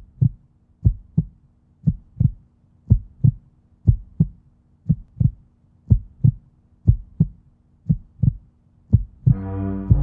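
Heartbeat sound effect: paired lub-dub thumps about once a second, ten beats in all. Near the end a loud, low droning chord comes in.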